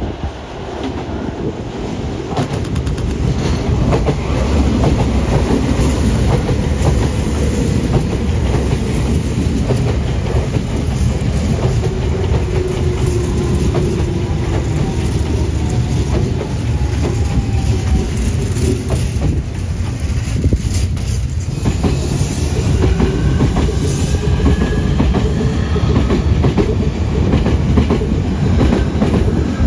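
Electric commuter trains running past on the rails: a Semboku Rapid Railway 7000-series train with wheel clatter over rail joints and a steady rumble, then, about 21 s in, a Semboku 9300-series train coming through with electric traction-motor whine over the rail noise.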